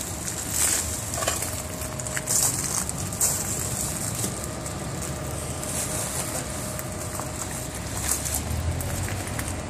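Shattered tempered glass crunching and clinking in short irregular scrapes, over a steady low rumble and a faint steady hum.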